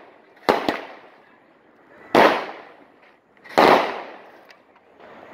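Consumer fireworks going off: three loud bangs about a second and a half apart, the first a quick double, each trailing off in echo.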